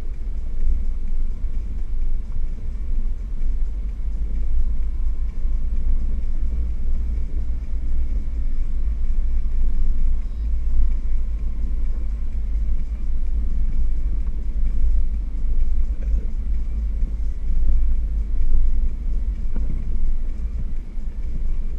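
Off-road vehicle driving along a rough dirt track, heard from inside the cab: a steady low rumble of engine and tyres.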